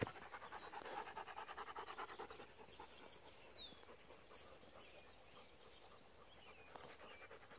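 Rapid rhythmic panting, about five breaths a second, that fades out after about three seconds.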